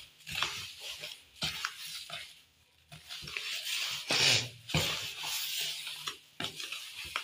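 Hands rubbing coarse semolina, freshly coated with oil, against a plastic basin: a gritty rustling and scraping in uneven strokes, with a short pause about two and a half seconds in.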